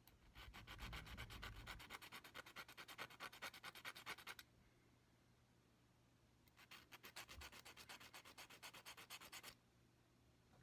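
Small gold four-prong basket setting rubbed back and forth on an abrasive, flattening its base: a quick, rhythmic scraping several strokes a second, in two spells with a short pause between.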